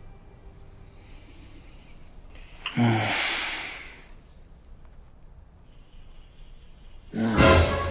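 A person's loud breaths through nose or mouth: one lasting about a second, a little under three seconds in, and a second, louder one near the end.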